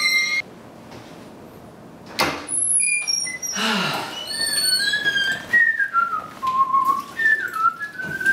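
A person whistling a tune in held notes that step up and down in pitch, after a single knock about two seconds in.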